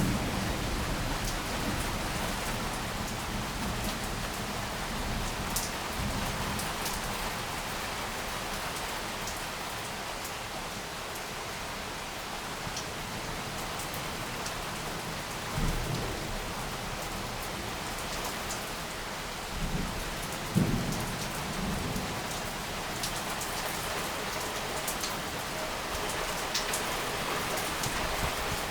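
Heavy rain pouring steadily in a thunderstorm, with low thunder rumbling that fades at the start and swells briefly again about halfway through and a few seconds later.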